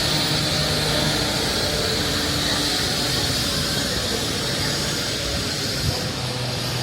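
Steady mechanical noise with a high whine held throughout.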